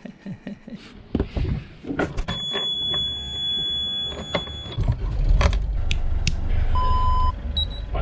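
Sailboat's inboard engine being started at its cockpit panel: a few clicks, then the panel's alarm buzzer sounding a steady high tone for about two seconds. The engine starts about halfway through and runs at a steady low idle, with a short beep near the end.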